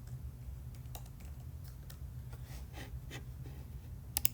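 Light, scattered computer keyboard typing clicks, with two sharp, louder clicks near the end, over a steady low hum.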